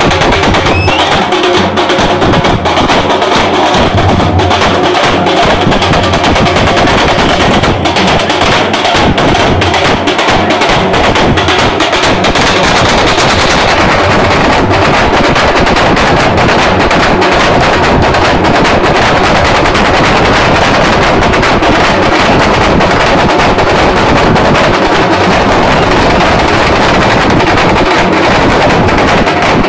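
A drum ensemble playing loud, fast, dense drumming that never lets up.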